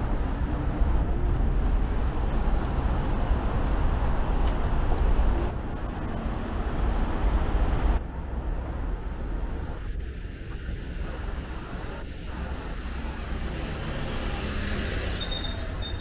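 Vehicle and street traffic noise: a heavy low rumble that drops sharply about eight seconds in, then goes on quieter.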